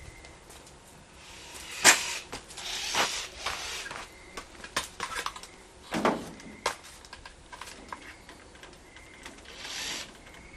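Irregular knocks, clatter and rustling scrapes of hands-on work at the edge of a corrugated roof panel. The sharpest knock comes about two seconds in and a heavier thud about six seconds in.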